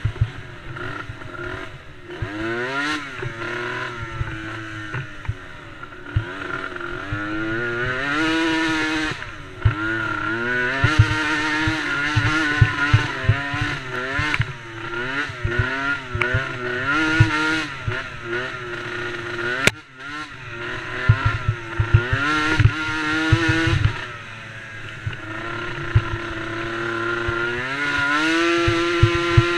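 Small 90cc youth racing quad engines, DRR DRX90 ATVs, running hard. The engine pitch climbs and falls over and over as the riders accelerate and back off, with frequent short low knocks mixed in.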